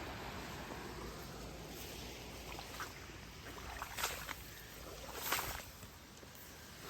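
Footsteps wading through shallow floodwater in shoes: sloshing splashes, a few of them from about three seconds in, over a steady rushing noise.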